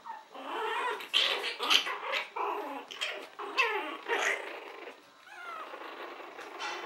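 Chihuahua puppies growling and yipping as they play-fight, a busy run of high calls for about five seconds, then a softer growl near the end.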